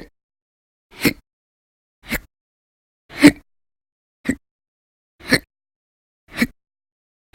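A woman hiccuping over and over, about seven short, sharp, loud hiccups at a steady pace of about one a second: a long, persistent bout of hiccups.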